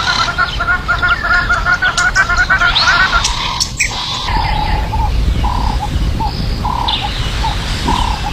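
Birds calling: a fast run of chirps for the first few seconds, then a series of short, evenly spaced notes about two a second, over a steady low rumble.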